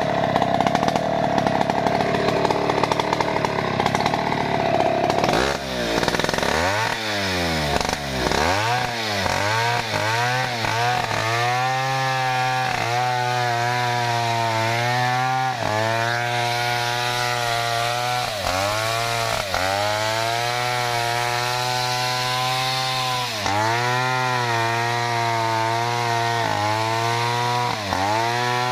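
Stihl MS070 chainsaw, a large single-cylinder two-stroke, running at full throttle while sawing through a thick felled log. Its note swings down and up several times early on, then holds high, sagging briefly every second or two as the chain loads up in the cut and recovering.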